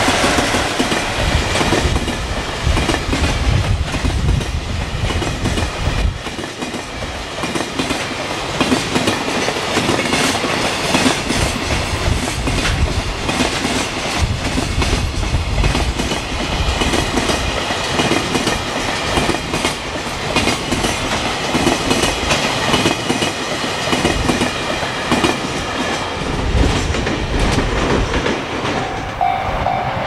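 Long container freight train running past at speed, its wheels clattering rhythmically over the rail joints in the loud, fast clickety-clack of jointed track. Just before the end the train noise gives way to the steady ringing of a level-crossing warning bell.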